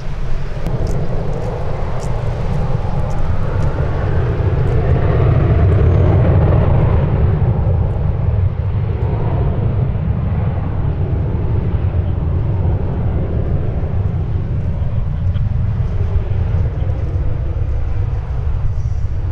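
Aircraft passing, its engine noise swelling to its loudest about six seconds in and then easing off, over a steady low rumble of wind buffeting the microphone.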